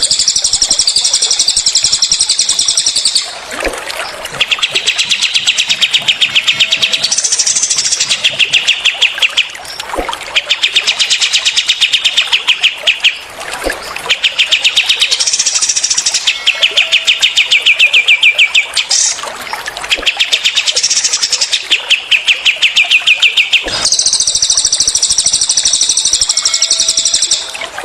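Recorded songs of cililin and kapas tembak songbirds, long rapid-fire strings of repeated notes. Very high phrases open and close the passage, with lower, fast rattling trills of a few seconds each in between, separated by brief pauses.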